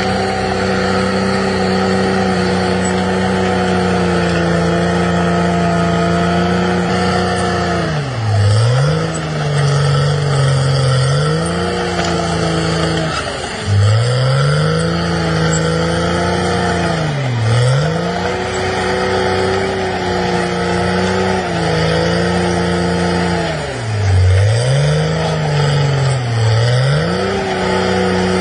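An engine running steadily, its speed dropping sharply and picking back up several times in the second half.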